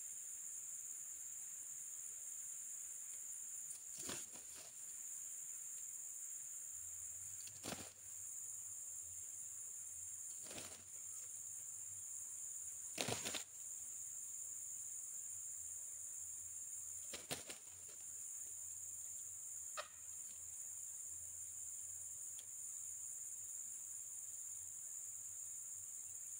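Steady high-pitched drone of insects, with about six brief sharp taps scattered through, the loudest about halfway.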